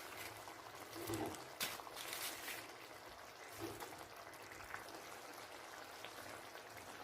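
Faint, soft wet sounds of food going into a pan of simmering masala: a few quiet plops and a short liquid pour.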